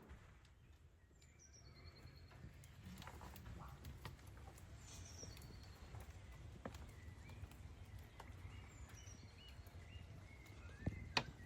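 Faint bird calls, a few short high falling notes, with scattered light taps and clicks that are sharpest near the end.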